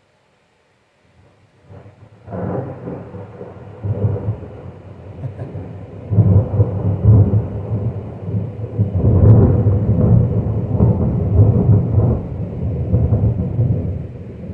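Thunder heard from indoors: a loud clap starts suddenly about two seconds in. It rumbles on in rolling waves that swell louder around six and nine seconds in.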